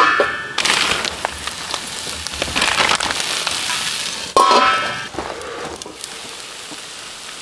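Stainless steel lid clinking against a cast iron skillet at the start and again about four and a half seconds in, with food sizzling in the skillet between.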